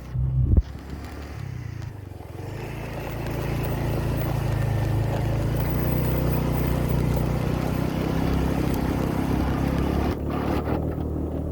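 Motor vehicle engine running steadily under road and wind noise, getting louder about two seconds in and dropping back near the end.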